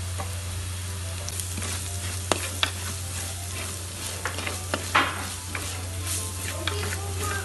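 Masala of shallots, ginger, garlic and green chillies frying in coconut oil with freshly added chilli powder and turmeric, sizzling as a spoon stirs it round the pan. A few sharp scrapes and clicks of the spoon on the pan break through the sizzle, the loudest about five seconds in.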